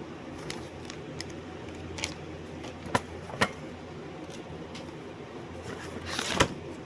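Steady low hum with a scattering of small clicks and knocks, two of them sharper about three seconds in. Near the end comes a brief rustle that ends in a loud sharp click.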